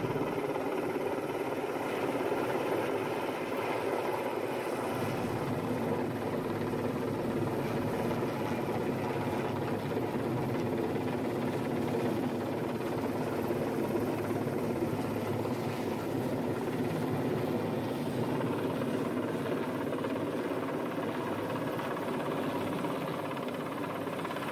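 Heavy-lift helicopter hovering overhead: the steady drone of its rotor and turbine engines, without a break.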